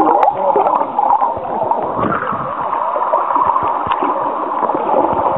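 Muffled underwater water noise: a steady gurgling and sloshing, as heard through a camera held below the surface.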